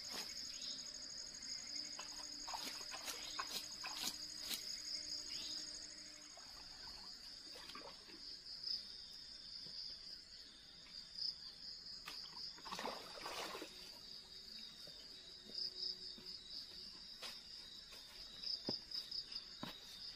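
Insects chirring in a steady, high, pulsing drone, with scattered small clicks and rustles of someone moving about, and a brief louder rustle about two-thirds of the way through.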